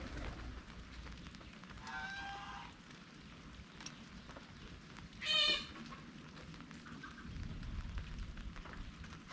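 Light drizzle pattering steadily, with two calls from a farm animal: a shorter one about two seconds in and a louder, higher one about five seconds in.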